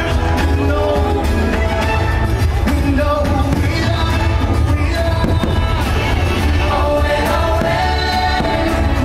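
Fireworks show soundtrack music with singing, playing loudly and continuously.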